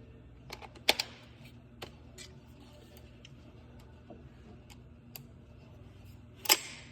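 Clicks and clacks of an airsoft green gas rifle and its magazine being handled while it is loaded: scattered small ticks, a sharp click about a second in, and a loud clack near the end.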